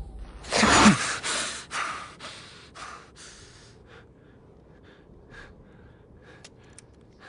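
A man wakes with a sharp, loud gasp, then pants in quick, ragged breaths that fade over about three seconds. A few faint ticks follow.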